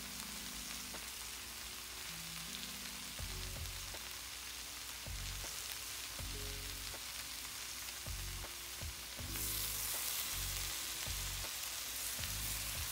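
Broccolini, bell peppers and onion frying in hot oil in a pan: a steady sizzle that grows louder about nine seconds in.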